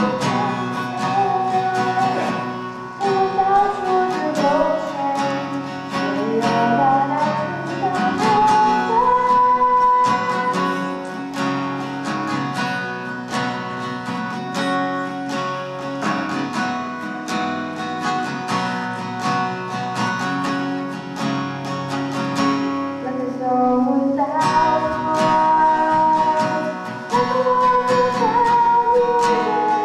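Singing over a strummed acoustic guitar, a slow ballad with a steady strumming rhythm.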